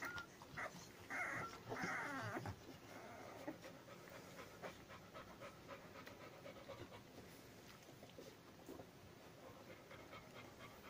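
Ten-day-old Labrador retriever puppies give a few short, high squeaks that slide in pitch in the first two seconds. After that the mother Labrador pants faintly while the litter nurses, with many small soft clicks of suckling.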